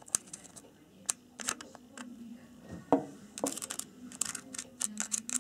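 Irregular clicks, taps and scrapes of hard objects being handled, with a faint low hum underneath.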